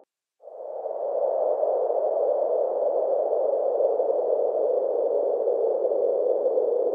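A steady, rushing noise drone fades in about half a second in and holds level, with two faint, steady high tones above it: an added intro sound effect under a title card.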